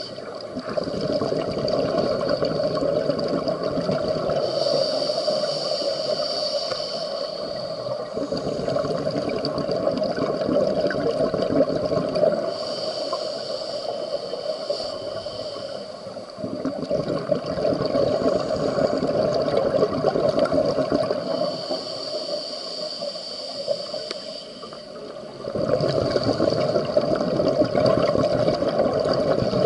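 Scuba divers breathing through regulators underwater. A high hiss comes on the inhales and a gurgling rush of bubbles on the exhales, rising and falling in cycles a few seconds long.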